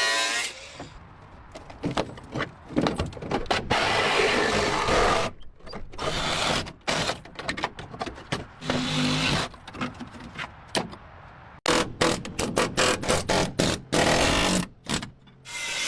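Hand-tool work on a car: stop-start bursts of scraping and rubbing mixed with quick runs of sharp clicks, with short pauses between them.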